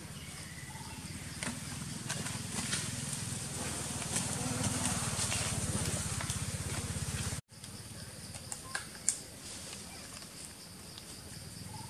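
Outdoor forest ambience: a steady high insect buzz over a low rumble that swells, then breaks off abruptly about seven seconds in. After that comes quieter ambience with the insect buzz and a few sharp clicks.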